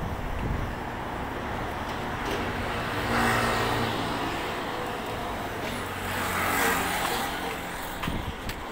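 Road traffic passing close by, a steady hum that swells twice as vehicles go past, about three seconds in and again past the middle.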